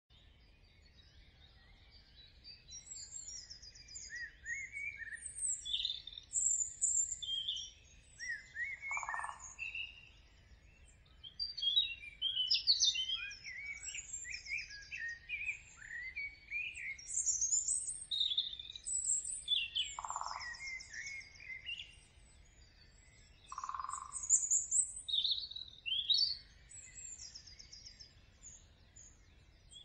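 Birdsong: several small birds chirping and trilling in quick, overlapping phrases, with a lower, shorter call sounding three times.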